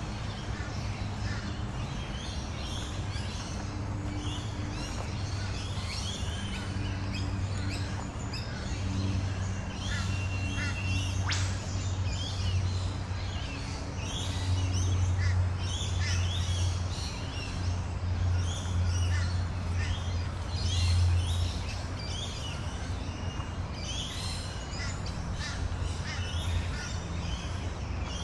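Many birds calling and chirping, with cawing crow-like calls among them, over a steady low hum that grows louder in the middle. One sharp click about eleven seconds in.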